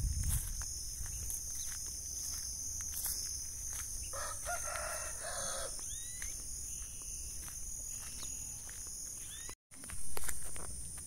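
A rooster crows once, about four seconds in, lasting under two seconds, over a steady high drone of insects with a few short bird chirps. A brief loud burst of noise follows near the end.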